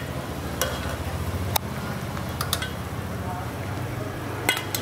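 Metal tongs clinking several times against the rims of stainless steel pots as grilled quails are moved into a pot of boiling water. Under the clinks runs a steady low rumble with a faint hiss from the water boiling on the stove.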